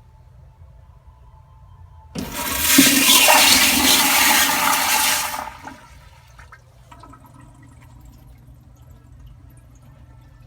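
Sloan 1.5-gallon-per-flush toilet flushing: a sudden loud rush of water starts about two seconds in, runs for about three seconds, then falls away quickly to a faint trickle.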